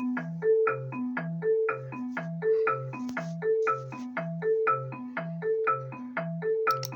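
Senegal's emergency alert (EAS) alarm melody played on a marimba: a short figure of mallet notes repeating about once a second.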